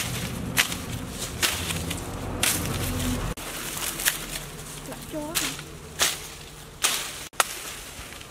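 Large cleaver-like knife hacking at a banana plant's stalk and leaves, a series of sharp slashing chops, roughly one a second.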